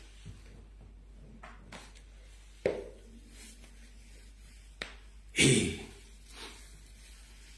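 A pause in the talk: faint room tone broken by two small clicks and, about five and a half seconds in, a short, loud breath close to the microphone.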